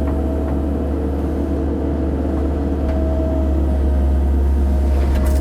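Cat 308 mini excavator's diesel engine running steadily, a constant low drone with a steady higher tone over it.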